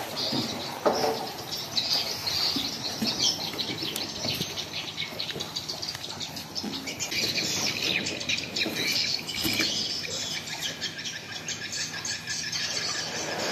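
Birds chirping continuously in many short, quick calls, with a few soft knocks and rustles of a caught fish being handled.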